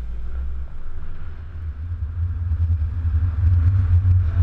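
Wind buffeting a camera held out of a moving pickup truck, mixed with the truck's road rumble: a low rumble that keeps rising and falling.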